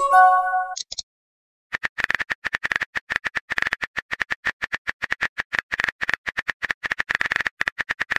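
A short electronic message-sent chime from a texting app, then about a second of silence, then a fast run of simulated keyboard typing clicks, roughly eight a second, as a text is typed out.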